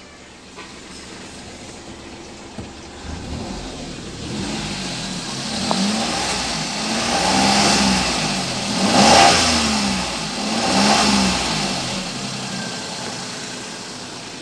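Suzuki Alto 800's three-cylinder engine, warmed up and on its stock exhaust, idling and then revved in several short throttle blips, each rising and falling in pitch, before settling back to idle near the end.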